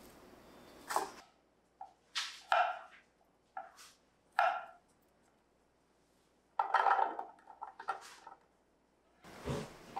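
Chef's knife slicing garlic cloves on a wooden cutting board: about six separate cuts, each a sharp knock of the blade on the board, spaced unevenly over the first few seconds. About seven seconds in comes a short burst of scraping and handling noise.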